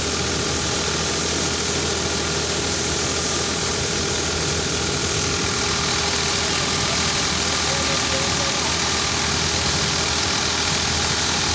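Ford 4610 tractor's three-cylinder diesel engine running steadily under load, driving a maize sheller through the PTO, with the sheller's continuous threshing clatter over it.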